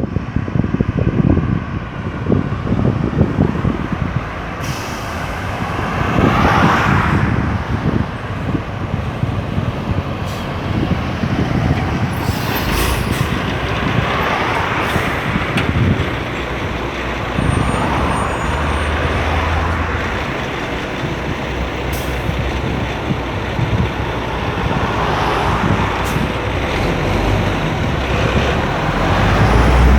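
Busy highway traffic: a continuous stream of vehicles passing one after another, each rising and fading as it goes by.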